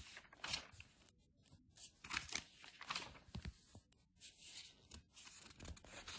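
Glossy paper catalogue pages being turned and handled: irregular rustles and swishes of paper under a hand.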